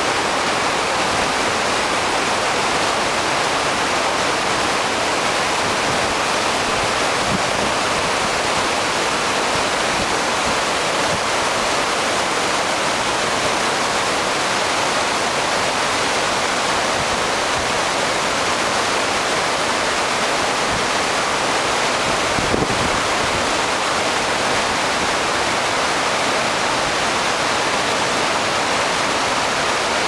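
Whitewater river rapids rushing over rocks below a waterfall: a loud, steady, unbroken rush of water.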